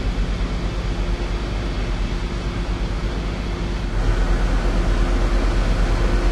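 Steady low rumble and hum of a ferry's machinery under a steady hiss, heard on deck; it gets louder about four seconds in.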